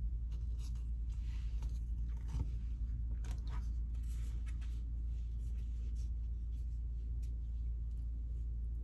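Faint scrapes and light clicks of cupcakes being iced by hand, busiest in the first few seconds, over a steady low hum.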